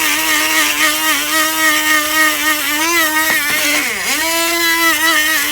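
The small electric motor of a vintage 12-volt spark plug cleaner running with a steady whine as it blasts sand over a dirty spark plug. Its pitch sags briefly about three seconds in and drops sharply near four seconds before picking back up, as if the motor is loaded down.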